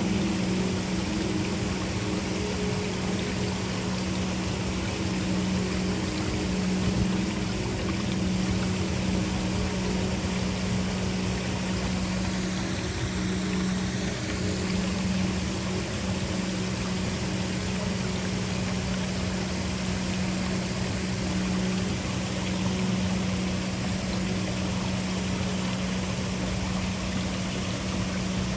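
Waterfall: a steady rush of falling water, over a low, steady drone from the background ambience.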